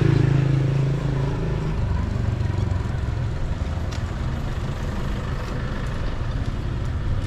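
Small motorbike engines running slowly with steady road and wind rumble. A louder engine note in the first second or two fades away as a scooter passes close by.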